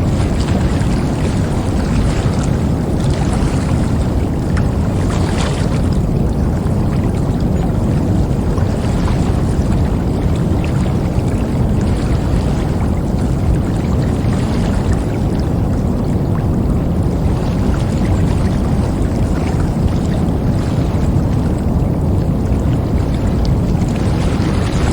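River water flowing steadily, a continuous full rushing with a deep low rumble and faint splashing flickers in the upper range.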